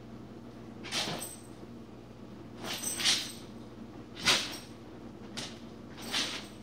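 An Airedale terrier squirming and rubbing on her back on a rug, making short noisy swishes about once a second. The loudest comes a little past four seconds in.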